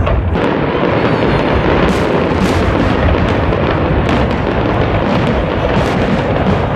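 A dense barrage of fireworks, with many overlapping bangs and crackles merging into a continuous rumble.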